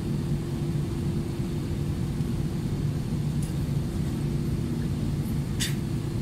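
Airbus A320 cabin on the ground with its engines running: a steady low rumble with a constant hum. One light click about five and a half seconds in.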